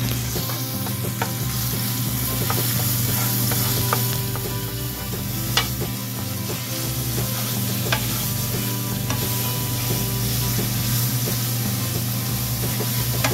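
Blended garlic and onion sizzling as they are sautéed in oil in a pan, stirred with a utensil that gives a few sharp clicks against the pan, over a steady low hum.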